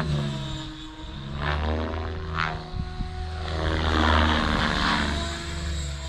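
XLPower 550 radio-controlled helicopter flying aerobatics. Its rotor and drivetrain whine rises and falls in pitch as it manoeuvres, and the blades swell into a louder rush about four seconds in.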